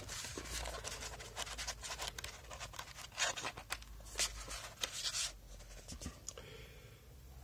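Pages of a paperback manga volume flipped through by hand: a quick run of papery flicks and rustles, with a few louder page turns, thinning out near the end.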